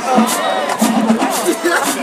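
Marching band playing, with regular drum and cymbal strikes and low sustained notes, and crowd voices over it.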